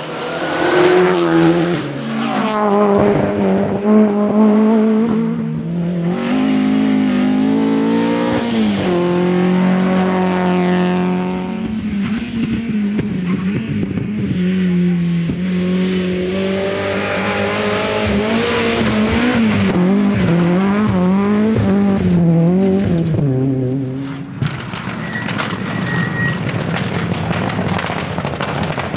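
Rally cars driven flat out on a stage. The engines rev hard, their pitch climbing and dropping sharply again and again through gear changes and lifts off the throttle.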